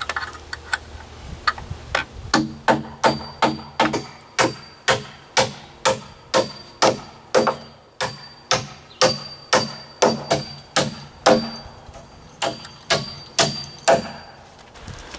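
Claw hammer driving nails through a galvanized steel joist hanger into a wooden deck joist: a few light taps, then a steady run of strikes about two a second, each with a short metallic ring.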